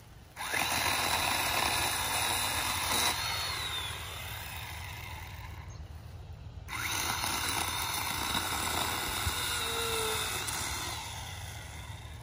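Ryobi electric pole saw running in two bursts, a dense buzzing noise with a high motor whine, its chain cutting into pine branches. The first burst starts suddenly about half a second in and eases off; the second starts abruptly about halfway through.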